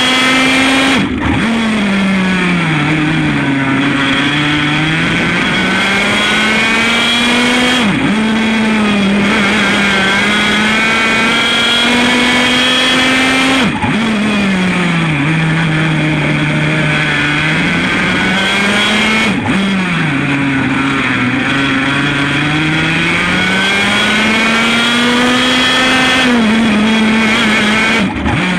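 100 cc Formula A kart's two-stroke engine running hard, its pitch dropping and climbing again several times as the revs fall and build, with a few brief sharp breaks in the sound.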